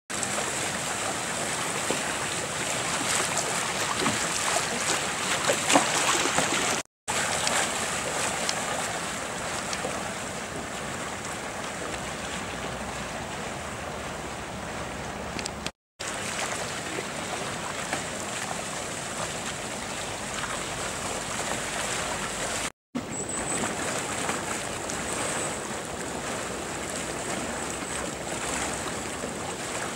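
Kayak paddling on moving water: the rush of the water mixed with paddle strokes and splashes. The sound drops out briefly three times, at cuts between clips.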